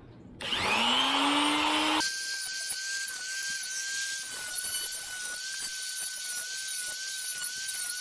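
Angle grinder with a thin cut-off disc spinning up with a rising whine. From about two seconds in it grinds into the steel pin of a dirt bike's drive chain to cut the jammed chain off: a steady high whine over a harsh hiss.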